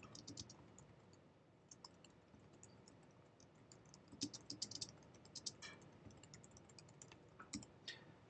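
Faint typing on a computer keyboard: irregular keystrokes in short runs, the busiest run about four seconds in.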